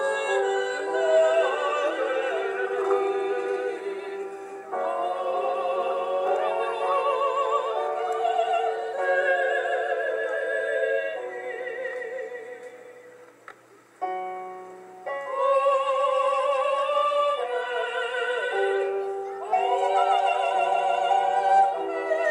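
A small group of singers performing a Dalmatian folk song together, several voices at once with a strong shake in the voice, sung in long phrases. Around thirteen seconds in the singing drops almost to nothing, then starts again suddenly.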